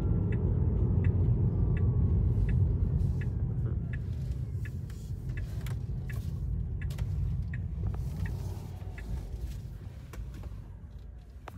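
Car interior sound: low engine and road rumble that fades steadily as the car slows, with a turn-signal indicator ticking evenly about every 0.7 s.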